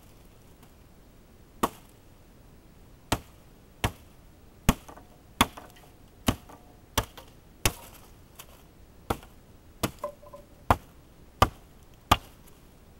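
Estwing E14A sportsman's axe chopping into a wooden stick: about a dozen sharp, separate strikes, irregularly spaced less than a second apart, starting just over a second in.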